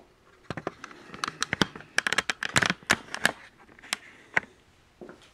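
Handling noise: a quick, irregular run of sharp clicks and knocks as hard objects are picked up, moved and set down, thickest in the middle and thinning out near the end.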